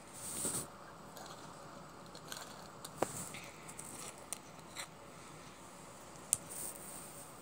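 Soft handling noise: a short rustle of fabric at the start, then scattered small clicks and taps, the sharpest about six seconds in.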